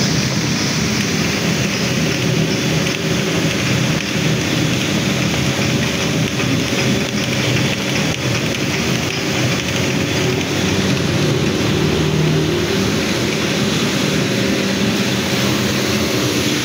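Mustard oil expeller running steadily as it crushes mustard seed: a low hum under a dense, gritty mechanical noise.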